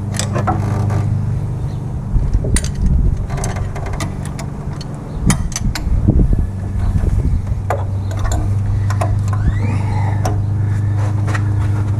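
Hand tools and metal engine parts clinking and clanking irregularly, as a wrench is worked on the front of the engine, over a steady low mechanical hum.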